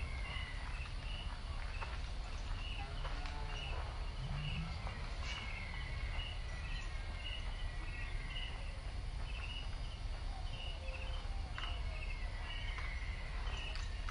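Evening insect chirping: a high, even chirp repeating about twice a second, over a low rumble of wind on the microphone.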